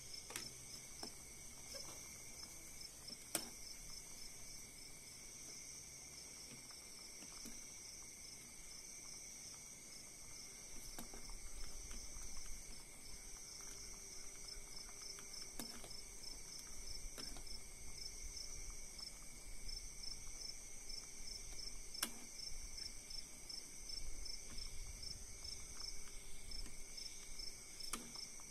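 Insects trilling steadily and high, with a few sharp clicks of a metal ladle against a perforated metal strainer as ingredients are pressed in a simmering pot.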